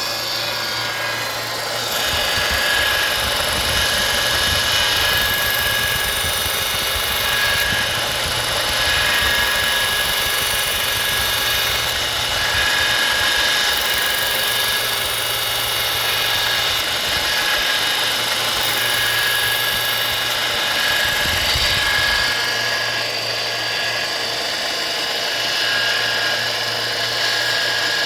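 Harbor Freight 1-inch belt sander with a leather stropping belt running steadily, with a pocket knife blade being stropped on it. The motor gives a steady whine over a hiss, and a heavier low rumble joins about two seconds in and drops away a little past twenty seconds.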